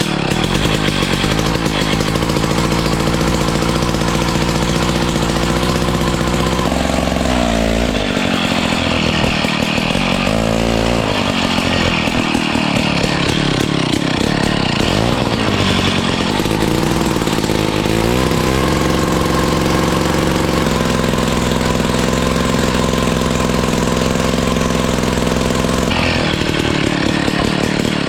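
Gas-powered ice auger engine running steadily. Its pitch dips and climbs again a few times as the bit bores through the ice.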